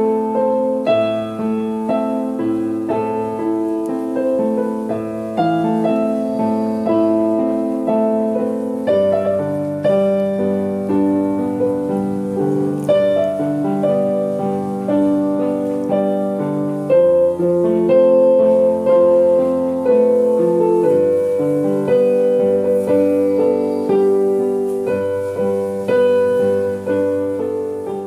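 Piano music: a steady run of struck notes and chords, with no machine sound.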